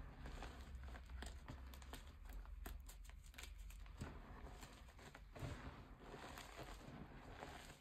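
Hands crushing and crumbling lumps of gym chalk in a pile of chalk powder: faint, irregular soft crunches and crackles of breaking chalk.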